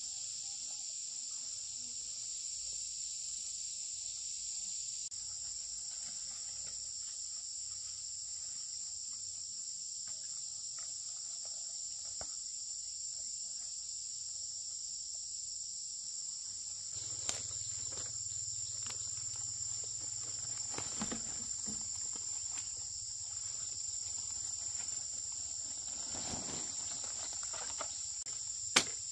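Insects chirring in an unbroken high drone. In the second half a few scattered knocks and clicks sound over it, the sharpest near the end.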